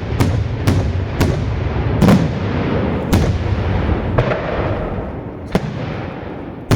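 Daytime fireworks shells bursting in a string of sharp bangs, about one a second at uneven gaps, with a continuous low rumble between them.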